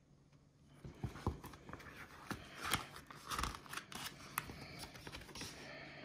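Glossy pages of a paper catalogue being turned by hand: irregular rustling and crinkling with sharp paper snaps, starting about a second in.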